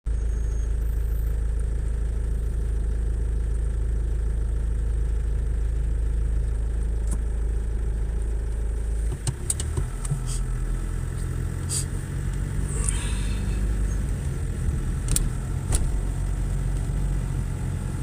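Car engine and road noise heard from inside the car: a steady low rumble that shifts about nine seconds in, with a few short sharp clicks later on.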